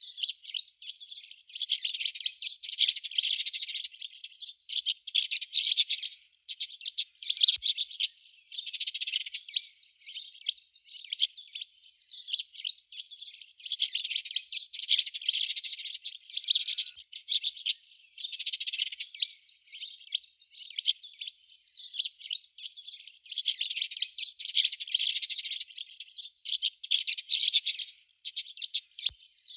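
A flock of Eurasian tree sparrows chirping: many quick, overlapping chirps in bouts with short lulls.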